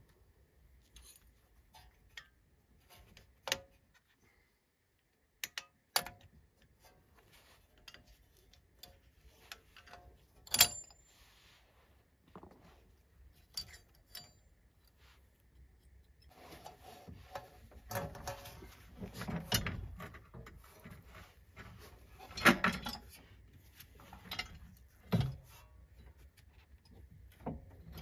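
Irregular metallic clinks, taps and clatter of hand tools against steel rear suspension and hub parts during hands-on disassembly, with a few sharper knocks and busier clattering in the second half.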